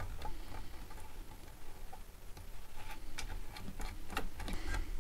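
Light, irregular clicks and ticks of a small nut being threaded by hand onto a toggle switch's threaded bushing in an ABS plastic case, growing more frequent in the second half.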